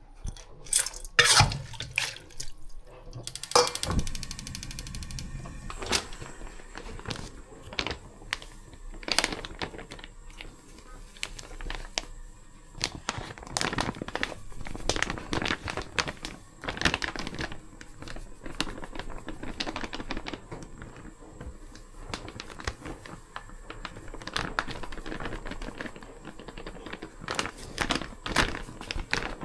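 Kitchen food-prep sounds: irregular knocks, clicks and light handling noises of utensils and ingredients, with a quick run of rapid taps about three seconds in.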